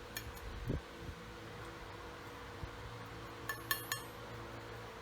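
Small metal circular-saw accessories being handled, with a soft thump just under a second in and a quick cluster of light metallic clinks about three and a half seconds in, over a steady faint hum.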